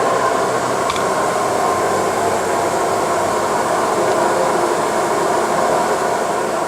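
Steady whirring hum of powered-up machinery, even and unbroken, with a few faint steady tones in it and a light click about a second in.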